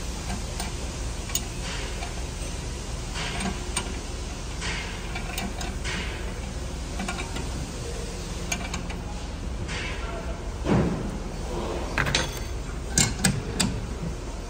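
Small metal clicks and scraping from hand work on a diesel injector nozzle clamped in a steel bench vise, over a steady low workshop hum. A louder clunk comes late on, then a few sharp clicks near the end.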